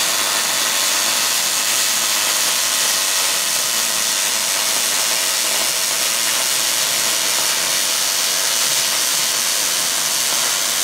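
MIG welding arc from a Millermatic 252 welder, a steady loud sizzling hiss and crackle as bushings are welded into a mower arm.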